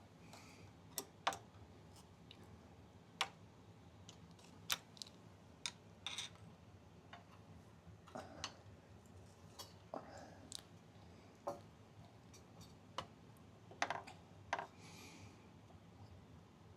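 Scattered light clicks and taps of metal parts being handled as a motorcycle fork tube is worked up into the triple clamp, irregular and spaced a second or so apart, with a few soft rustles.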